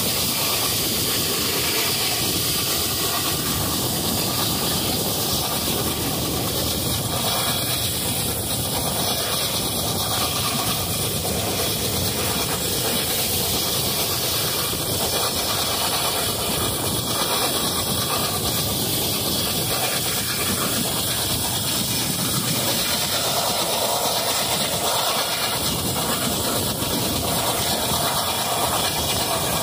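Train running along the line, heard on board: a steady, loud, even rush of noise with a lot of hiss, unchanging throughout.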